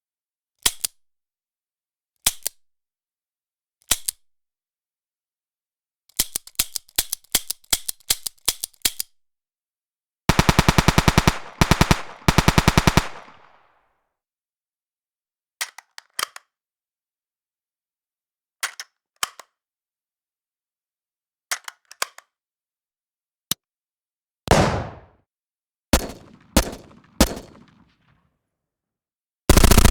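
Recorded gunshots, pistol-type. There are single shots a second or two apart and a quick string of about a dozen shots. A few seconds of rapid automatic fire follow, then more single and paired shots, some of them with a longer echoing tail. Each shot cuts off into dead silence.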